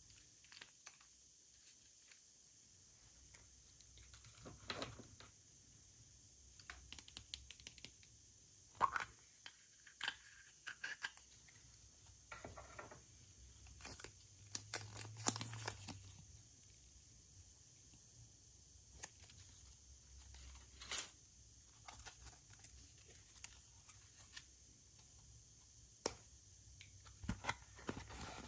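Packaging being handled and torn open by hand: faint scattered crinkles and taps, with a longer tearing rustle about halfway through.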